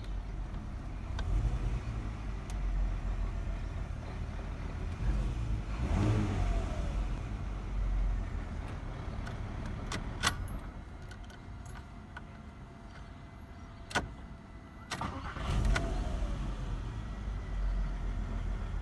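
2009 Volkswagen Passat CC engine being started with difficulty, a hard start. A low engine rumble swells twice, about six and fifteen seconds in, with a quieter stretch and a couple of sharp clicks in between.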